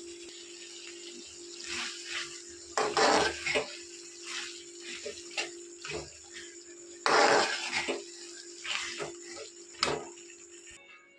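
Tomatoes simmering and sizzling in a metal kadai, a steady hiss broken by several louder scraping, squelching bursts as a slotted steel spatula stirs them. The sound cuts off suddenly near the end.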